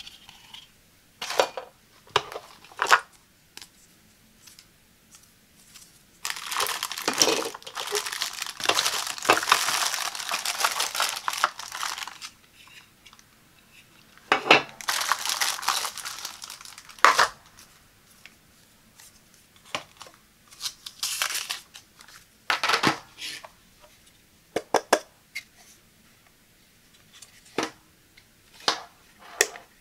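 Plastic packaging bag crinkling in two long stretches as the egg cooker's parts are unwrapped, between short clicks and taps of the cooker's hard plastic lid and base being handled.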